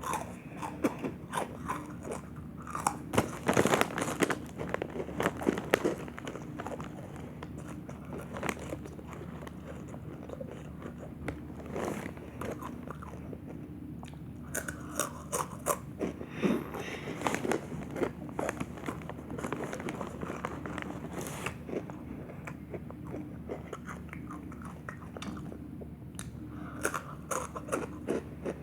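Close-up crunching and chewing of rolled tortilla chips (Dynamite Takis), irregular crunches with louder clusters about three to six seconds in and again near the end, over a steady low hum.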